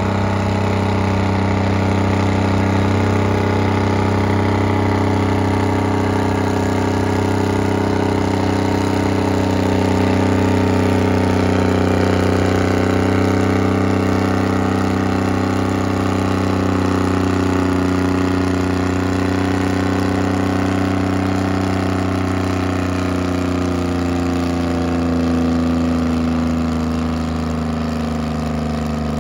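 Oliver Super 99 tractor engine running steadily under heavy load while pulling a weight-transfer sled. Its pitch sags slightly in the second half of the pull.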